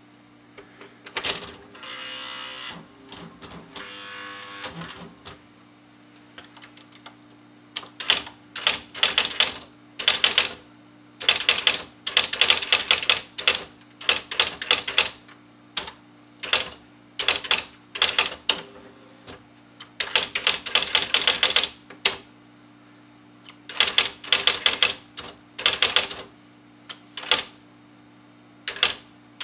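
Smith Corona 235 DLE electric typewriter with its motor humming steadily while keys are struck in quick bursts of typing, with short pauses between bursts. Near the start come two longer mechanical runs of about a second each before the typing begins.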